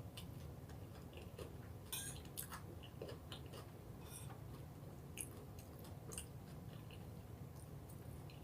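Close-miked mouth sounds of someone chewing food, with irregular wet smacks and clicks.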